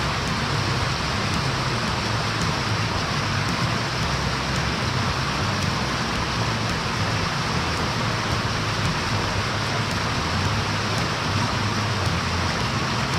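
Steady rushing of fast-flowing floodwater in a river.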